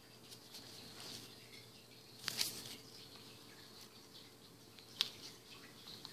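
Faint handling noise of a small piece of clear plastic film held between the fingers: light scattered ticks and crinkles, with two sharp clicks a little over two seconds in and another about five seconds in.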